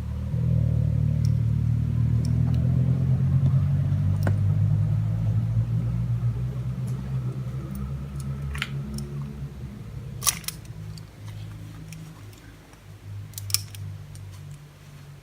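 A motor vehicle's engine: a low hum that comes up about half a second in and slowly fades away, with a few sharp clicks along the way.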